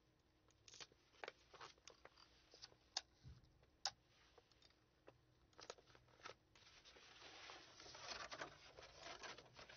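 Faint crafting sounds of tape and paper being handled: scattered sharp clicks and taps, then a longer rustle of paper and cardboard starting past the middle.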